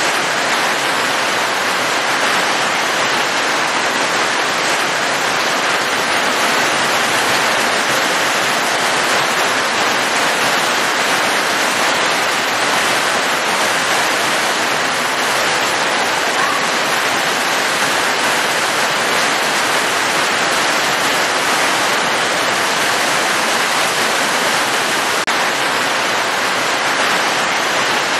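Heavy rain falling steadily: a dense, even hiss with no breaks or single drops standing out.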